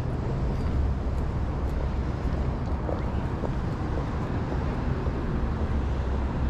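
Outdoor city street ambience: a steady low rumble of traffic with a faint hiss of general street noise.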